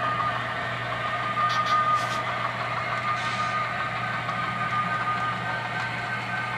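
Model diesel locomotive running past with a steady engine hum and faint high tones, the sound of a model diesel in motion on the layout.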